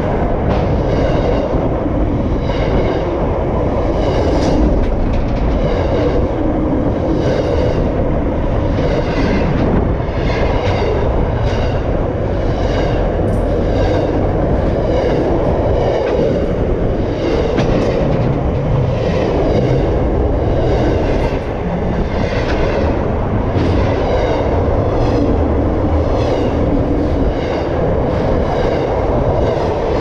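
Pacific National freight train's wagons rolling directly overhead on the rails: a loud, steady rumble with the wheels clacking over the track in a regular beat.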